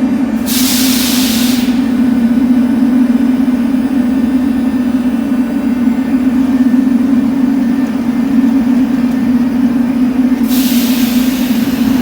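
Minsk metro train at a station: a steady low hum, broken by two sharp hisses of compressed air from its brakes, one about half a second in and another near the end.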